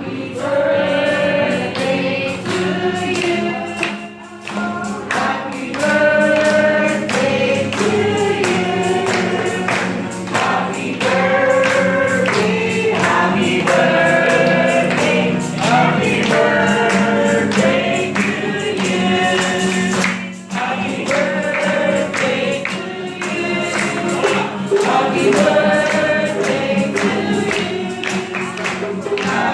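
Choir singing a gospel song over a band with a steady beat.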